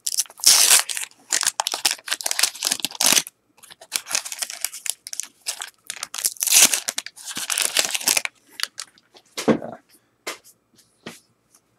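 Waxed-paper wrapper of a 1989 Topps football card pack being torn open and crinkled by hand, in two long stretches of crackling, then a few scattered light crinkles and clicks near the end.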